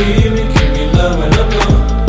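Background music in a hip-hop/R&B style with a steady beat: a deep kick drum with a falling pitch lands about every 0.4 seconds under a wavering melody.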